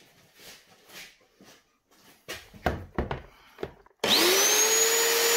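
Small electric chainsaw motor switched on about four seconds in, spinning up fast to a steady high whine. This is a test run after repair, to check that the chain oil pump delivers oil. Before it come a few light handling knocks.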